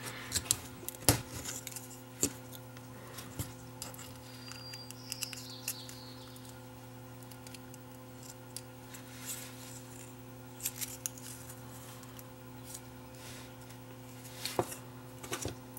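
Scattered small clicks and scrapes of a thin metal tool prying at the metal RF shield cover over a chip on a circuit board, in a few short bunches. A steady low hum runs underneath.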